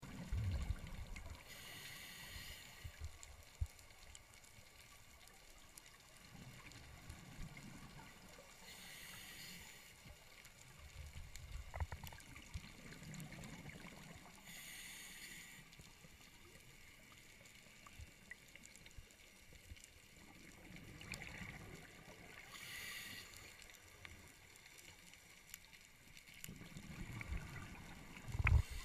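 Scuba diver breathing through a regulator underwater: a short hiss on each inhalation alternates with low, rumbling exhaled bubbles, one breath about every six to seven seconds.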